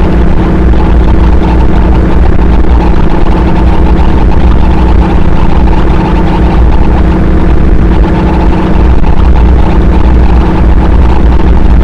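Harsh noise music: a loud, dense, unbroken wall of distorted noise over a heavy low rumble, with a few steady droning tones held through it.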